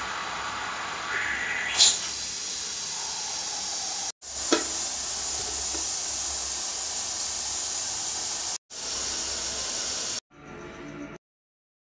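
Steady hiss of steam from a pressure cooker's nozzle, venting up through a steel cup of rice flour as puttu steams. A short sound rising in pitch comes about two seconds in, and a sharp metal clink comes about four and a half seconds in; the hiss breaks off in places and stops near the end.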